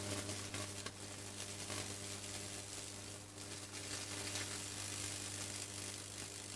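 High-voltage (2.3 kV) current arcing and burning through tree branches: continuous crackling and sizzling over a steady low electrical hum.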